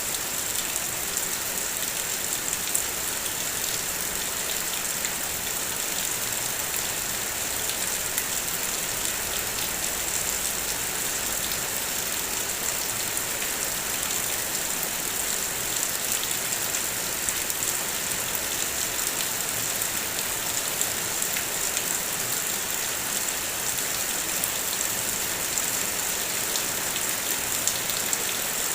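Steady heavy rain falling, a dense even hiss with many small drop ticks.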